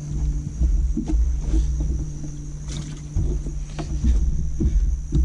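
Knocks and thumps of someone moving about on an aluminium-and-deck fishing boat, over a gusty low rumble and a steady low hum.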